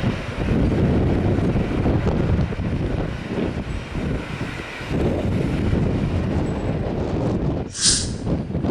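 Wind buffeting the microphone as a loud, gusting low rumble, with a short sharp hiss near the end.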